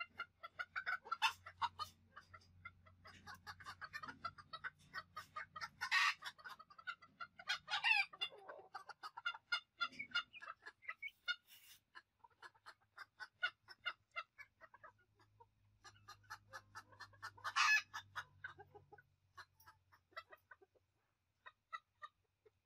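Vietnamese bantam chickens clucking in a quick, steady chatter, with a few louder calls about six, eight and eighteen seconds in.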